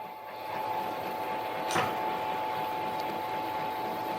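Harbor Freight mini lathe running with a steady whine while drilling into the workpiece held in the chuck, with one short tick a little under two seconds in.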